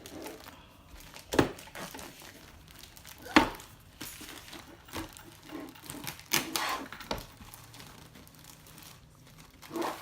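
Handling of a Melissa & Doug wooden toy doorbell house: keys turning in its little locks and small wooden doors clicking open. Two sharp clacks stand out about one and a half and three and a half seconds in, with a run of clatter around six to seven seconds.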